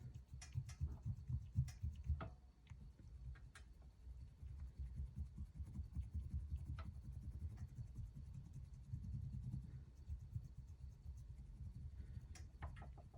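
Crayon being rubbed into the engraving on a firearm, worked side to side and up and down: faint scratching with a few light clicks.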